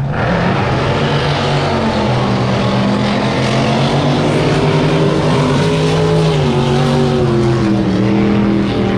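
A racing drag boat's engine running hard on a pass, loud and steady with a heavy drone. The sound comes in suddenly at the start, and the pitch sinks slowly in the second half before lifting slightly near the end.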